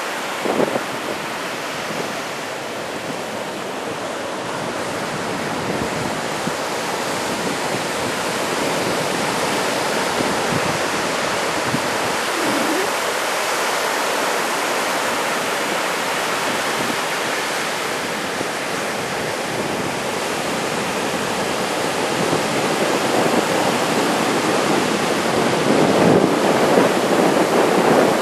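Big typhoon swell breaking on a sandy beach: a continuous wash of surf that swells louder near the end, with some wind on the microphone.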